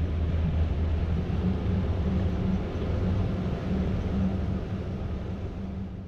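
Motorboat engine running steadily under way, a low drone over the rush of water and wind, fading out near the end.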